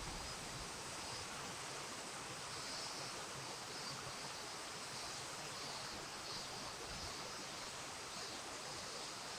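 Steady rushing of river water, with faint high-pitched sounds recurring every second or so.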